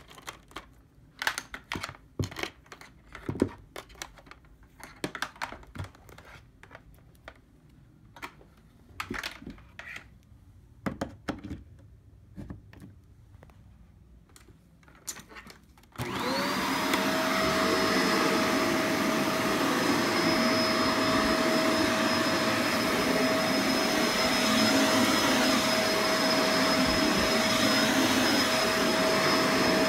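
A series of scattered clicks and knocks, then about halfway through a vacuum cleaner is switched on. Its motor whine rises quickly to speed and settles into a steady run with a high whine over a loud rush of air.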